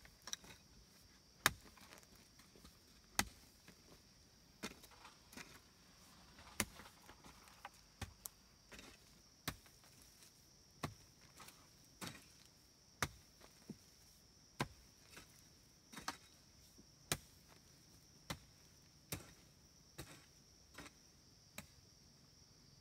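A hand tool chopping again and again, with sharp, fairly evenly spaced strikes about once a second.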